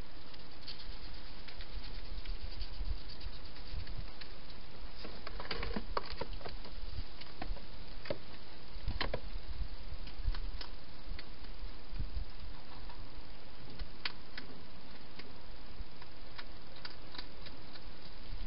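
Wild hedgehog eating at a feeding bowl: scattered small clicks and crackles of munching over a steady hiss.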